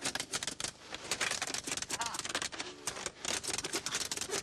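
A rapid run of sharp clicks or taps, about eight a second, with a brief pause about a second in, and a voice mixed in.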